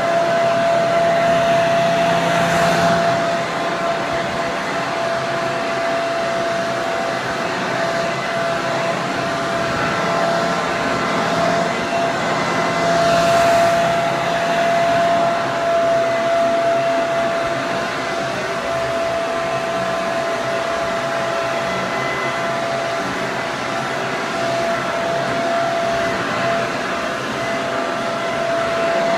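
Hair dryer running continuously: a steady rush of blown air with a constant motor whine, swelling slightly in loudness a couple of times.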